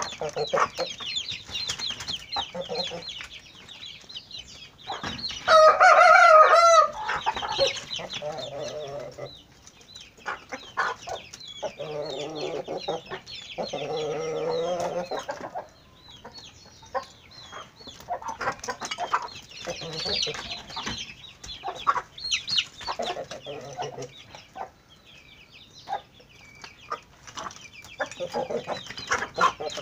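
Chickens clucking and calling, with a rooster crowing loudly about five seconds in and a second, quieter long call from about twelve seconds.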